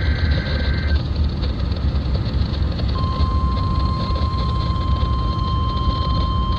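A NOAA Weather Radio SAME digital header burst, a warbling two-tone data chirp, ends about a second in. After a short gap, the steady 1050 Hz Weather Radio warning alarm tone starts about three seconds in and holds, announcing a new alert. A constant low rumble of receiver noise runs under it.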